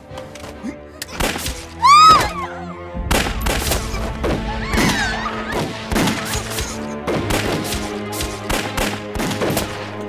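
Dramatic film score with a woman's high scream about two seconds in, then a run of rifle shots, staged gunfire effects, over the music.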